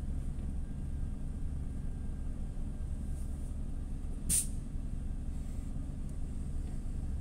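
TCV Karat city bus engine idling with a steady low rumble, heard from inside the bus; the uploader calls its sound badly broken. A brief sharp air hiss from the bus's pneumatic system comes about four seconds in.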